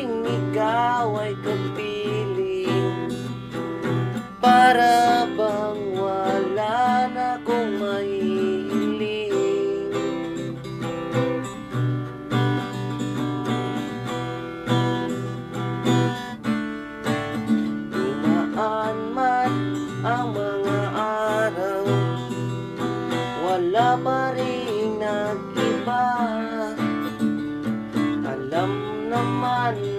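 Music: an acoustic guitar strumming steady chords, with a melody line above it that bends and slides in pitch.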